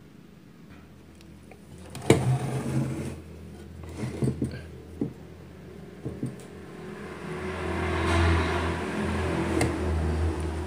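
A few knocks and clicks from the sewing machine being handled, the loudest about two seconds in. From about seven seconds in, a rushing noise with a low hum swells up and stays.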